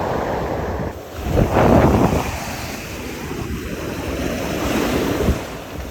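Ocean surf washing onto the beach, with wind rumbling on the microphone. A louder wave comes in about a second and a half in.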